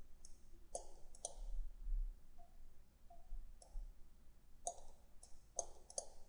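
Computer mouse clicking about ten times at irregular intervals, sharp and short, bunched near the start and again in the last second and a half, as sketch lines are selected and deleted.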